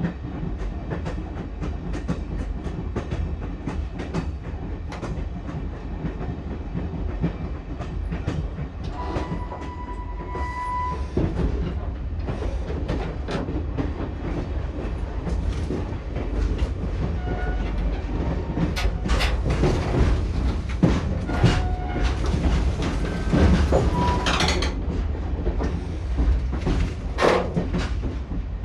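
Passenger train running, heard from inside the carriage: a steady low rumble with the wheels clicking over the rail joints. The clatter grows louder and busier about two-thirds of the way through, and a brief high tone sounds about nine seconds in.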